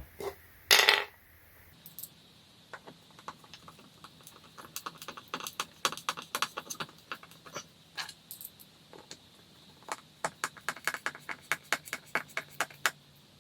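A loud short knock just under a second in, then a long run of small irregular clicks and clinks, like loose metal screws and furniture hardware being handled and sorted, getting busier towards the end.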